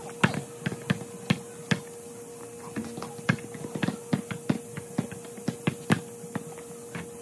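A quick, irregular run of sharp taps and knocks, several a second, over a faint steady tone.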